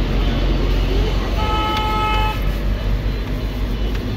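A vehicle horn honks once, a steady tone lasting about a second that starts about a second and a half in. It sounds over a steady low rumble of road traffic.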